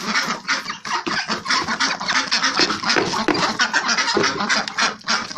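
Muscovy ducks eating mixed feed of bran, bread and rice, with a dense run of rapid pecking clicks and some bird calls.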